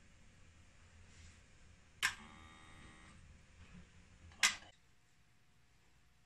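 Two sharp clicks about two and a half seconds apart from the opened inverter's wiring and clip leads being handled. The first is followed by a faint ringing that lasts about a second.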